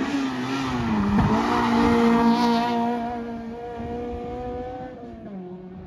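Race car's engine passing close by on a bend: the engine note drops about a second in, then holds steady under power, loudest around two seconds in as the car goes past, and fades as it drives away, with another drop in pitch near the end.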